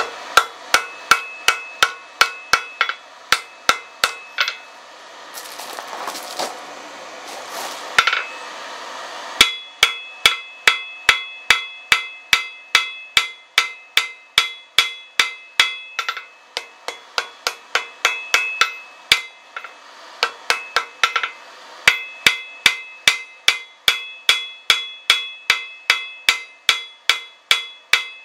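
Hand hammer striking red-hot steel on an anvil, forging a tomahawk head from an old horseshoe rasp. The blows come about three a second, each with a bright metallic ring. They break off for a few seconds about five seconds in, then resume steadily.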